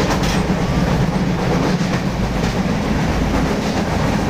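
Moving passenger train heard from inside the carriage: a steady, loud low rumble of the wheels running on the track.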